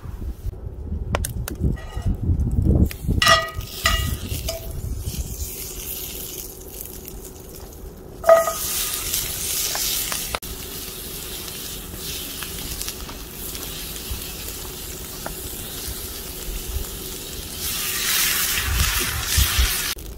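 Pieces of fatty meat sizzling in a hot cast-iron skillet. A few ringing metallic clinks come in the first seconds, and a sharp one about eight seconds in, after which a steady sizzle sets in. Near the end the hiss grows louder as water is poured into the hot pan.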